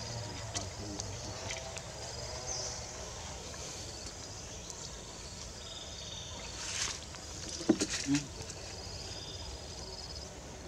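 Baby macaques wading and splashing in a plastic tub of water, with a splash about two-thirds of the way through and then two or three sharp knocks, likely a monkey bumping the tub. Thin calls of birds or insects run faintly underneath.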